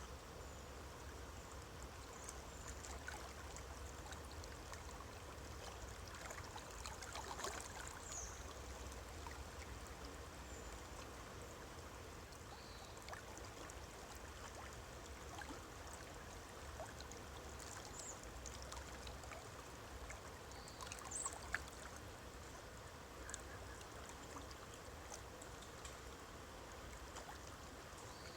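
A stream of running water, a steady rush with faint little splashes and trickles through it.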